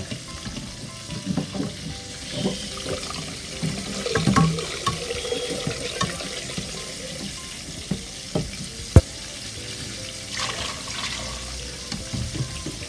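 Water sloshing in a blender jug as it is rinsed out and poured into a steel pot in a sink, with scattered clinks and a sharp knock about nine seconds in.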